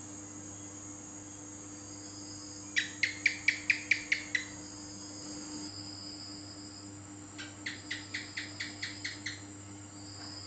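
House gecko (cicak) calling: a quick run of about eight loud, sharp chirps, then a few seconds later a fainter run of about ten.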